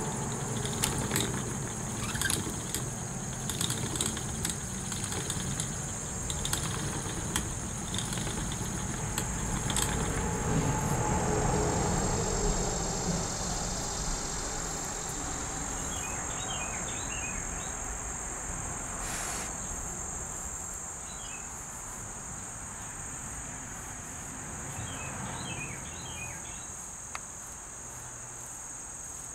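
Wooden treadle spinning wheel turning, a low rumble with light clicks that fades out around halfway. A steady high insect drone runs underneath, with a few faint short chirps in the second half.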